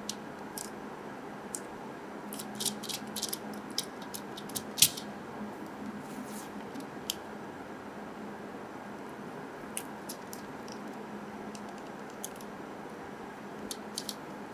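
Small, sharp clicks and taps of fingers and fingernails handling a plastic Mini 4WD car body while pressing on a sticker. They come in a quick cluster, the loudest about five seconds in, then a few scattered ones, over a steady low hum.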